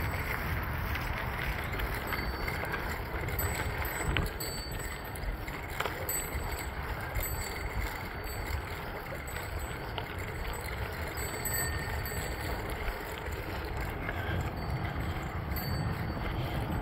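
Bicycle tyres rolling over a crushed-gravel trail surface, a steady rolling noise with wind rumbling on the microphone.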